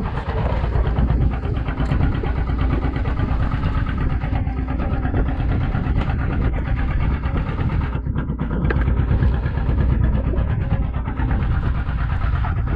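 An engine on a fishing boat running steadily, a constant low hum with no change in speed.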